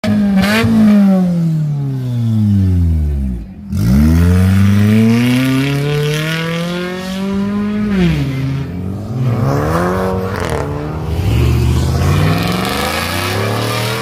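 Toyota Camry engine revving hard. The pitch falls away over the first few seconds and cuts out for a moment, then climbs again with two sharp dips in the second half before rising once more.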